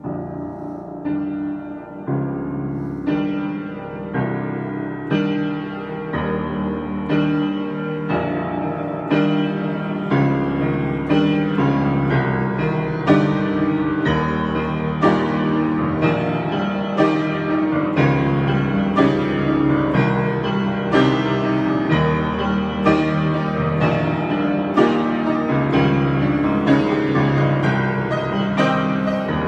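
Piano improvisation: notes and chords struck about once a second, building in loudness over the first several seconds, then sustaining at a steady level.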